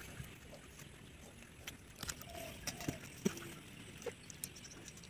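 Quiet farmyard background with a hen clucking faintly a few times around the middle, and scattered small clicks and taps.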